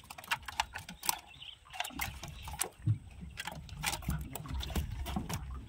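A freshly landed fish flopping on a boat's wet deck, its body slapping the boards in quick, irregular smacks. A low rumble runs underneath from about two seconds in.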